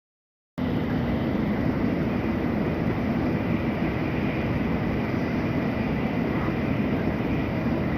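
Steady running noise inside a Tokaido Shinkansen passenger car travelling at speed, with a faint steady whine above the low rumble. It cuts in abruptly about half a second in.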